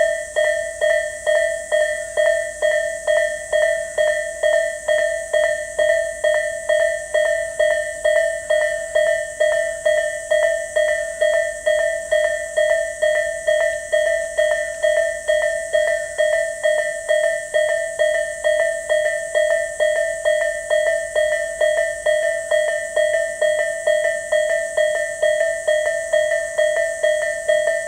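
Japanese level-crossing warning bell, the electronic Tobu-type sound ('Tobu sound A'), dinging steadily at about two and a half strikes a second. Each strike is a bright ringing tone with higher overtones.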